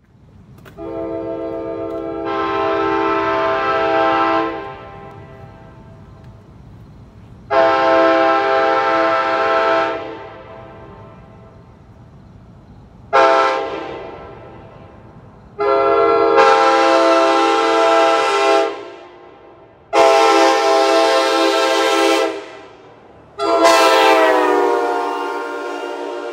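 Nathan Airchime K5LA five-chime train air horn, with a deeper-bored No. 4A bell, blown in six blasts of its chord. The first blast swells to full voice after about a second and a half. The third is a short toot. The others are held for two to three seconds. The last one drops in pitch as it opens up.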